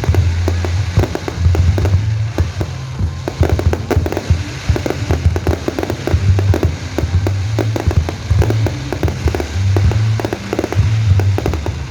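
A fireworks display: many rapid bangs and crackling reports, going off densely and without a break, with music playing underneath.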